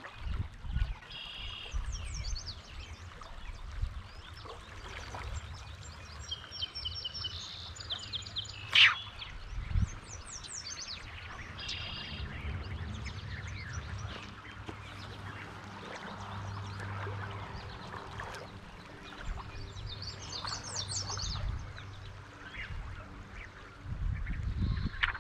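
Several birds calling, in short repeated high notes and quick runs of chirps, over the wash of a shallow creek, with a low rumble underneath. A single sharp click about nine seconds in is the loudest sound.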